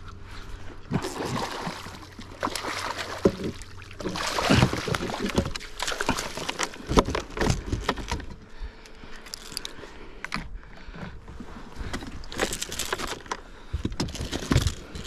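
Water sloshing and splashing around a fishing kayak, with irregular knocks and rattles of gear, while a hooked striped bass is fought on a spinning rod.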